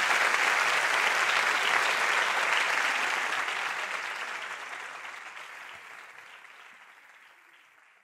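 Audience applauding, the applause fading out steadily over the second half.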